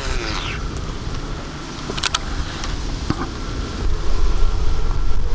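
Wind buffeting the microphone, a low rumbling that swells and grows louder from about four seconds in, with a short sharp click about two seconds in.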